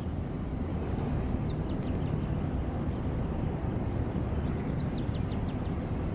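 Steady low rumble of a ship's engine, with birds chirping over it: a few quick high chirps about one and a half to two seconds in, and a quick run of them about five seconds in.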